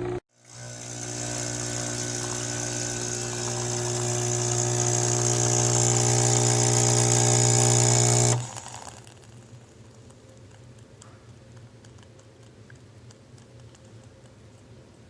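Nespresso Lattissima Pro espresso machine's pump humming while it makes a drink, with a hiss that grows steadily louder. The hum cuts out for a moment right at the start and stops suddenly about eight seconds in, leaving only faint ticking.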